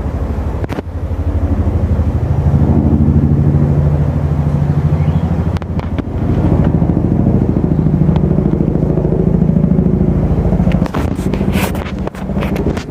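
Boeing CH-47 Chinook tandem-rotor helicopter flying close overhead, its twin rotors beating in a fast, steady throb. A few sharp knocks come near the end.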